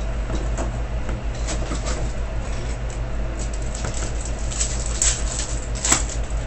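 Foil trading-card pack wrappers crinkling and rustling as packs are lifted out of the box and one is opened in the hands, with two sharper crackles near the end. A steady low hum runs underneath.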